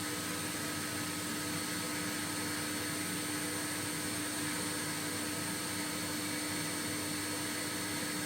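A sweep's soot vacuum running steadily, its motor giving a constant whine over an even rush of air.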